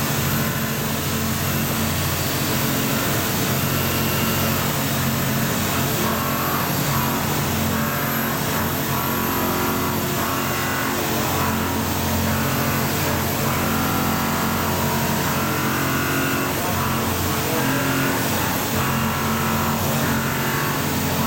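CNC milling machine cutting SKD61 hot-work tool steel with a POKOLM end mill: spindle and cutting noise running steadily, with a constant hum under it and a higher cutting tone that comes and goes every second or two as the tool engages the steel.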